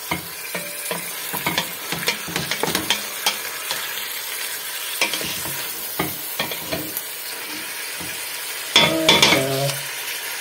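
Wooden spoon stirring chicken pieces in a stainless steel pot, knocking and scraping against the pot, while the meat sizzles in melted lard and onion. A brief louder sound comes near the end.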